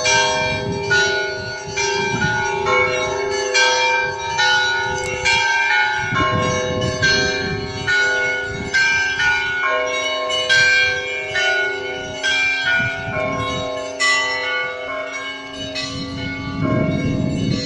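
Russian Orthodox church bells ringing: several bells of different pitches are struck in a quick repeating pattern, about one or two strokes a second, over the steady hum of larger bells.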